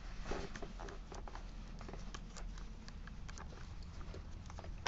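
Small irregular clicks and scrapes of a screwdriver turning the wire-terminal screw on the side of a 30-amp power-inlet plug body.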